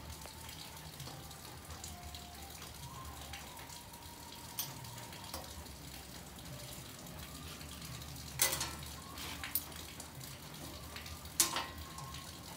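Steady low hiss of workshop room tone, broken by a few sharp metallic clicks and knocks as hand tools and an angle grinder are handled on a steel plate; the two loudest come about eight and eleven seconds in. The grinder is not running.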